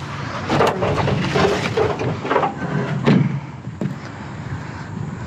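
Hard objects being handled, giving irregular clattering and knocking, with a louder knock about three seconds in.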